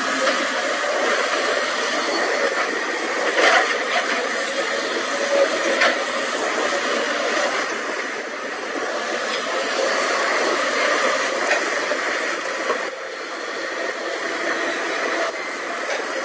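Caterpillar hydraulic excavators' diesel engines and hydraulics running under load while digging rock, a steady whirring noise. Two short sharp knocks come about three and a half and six seconds in.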